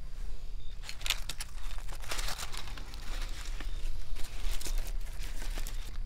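Aluminium foil and paper wrapping crinkling and tearing by hand as a sandwich is unwrapped, in irregular crackles that start about a second in, over a steady low hum.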